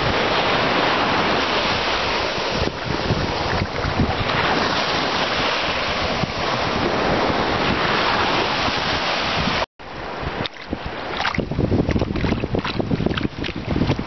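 Small surf washing up on a sandy shore, with wind buffeting the microphone. After a brief break about two-thirds of the way through, the noise comes in uneven gusts with crackling on the microphone.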